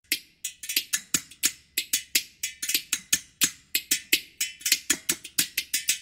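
Fast rhythmic percussion of sharp, bright clicks and taps struck on stainless steel kitchen utensils, about five strokes a second with some duller knocks mixed in, starting suddenly out of silence.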